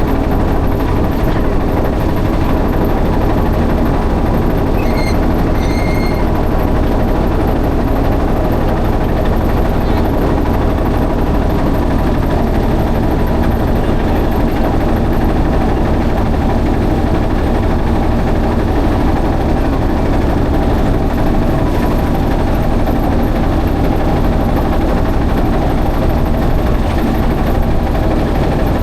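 Motorboat engine running steadily with a loud, even rumble. Two brief high chirps are heard about five seconds in.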